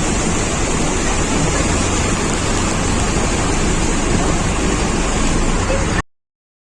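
Loud, steady rush of storm noise, wind and rushing floodwater, with no distinct events in it, cutting off suddenly about six seconds in.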